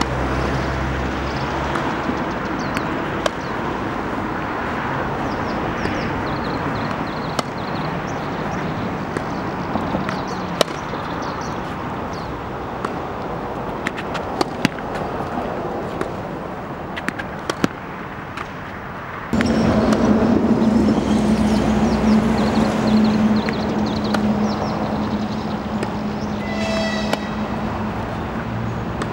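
Outdoor street ambience with a steady traffic hum and scattered sharp knocks of a tennis ball struck by a racket. About two-thirds of the way through a louder, steady vehicle engine drone comes in suddenly.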